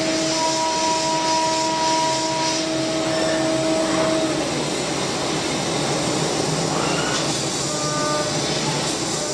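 CNC milling machine spindle running with a steady whine while an end mill cuts the metal part; the whine stops about four seconds in, leaving a steady rushing noise from the machine.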